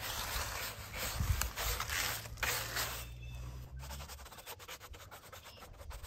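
Stiff-bristled hand brush scrubbing sawdust off freshly sawn white oak posts in repeated brush strokes. The strokes are lighter and quicker after about four seconds.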